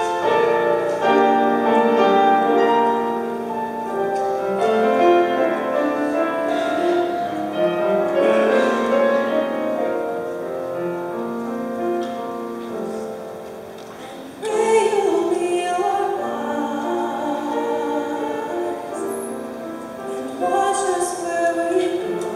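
Grand piano playing a slow, sustained introduction; about two-thirds of the way through, a young woman's solo voice comes in, singing with vibrato over the piano through a handheld microphone.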